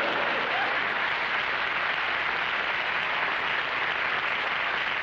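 Studio audience applauding and laughing in response to a comedian's punchline, a steady dense wash of clapping.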